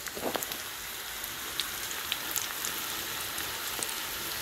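Battered cauliflower florets frying in hot oil in a pan: a steady sizzle with scattered small pops and crackles.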